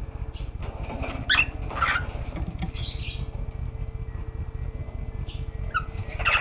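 Cockatiel making soft, little squeaky chirps: a few short calls about a second in, another near three seconds, and a few more near the end.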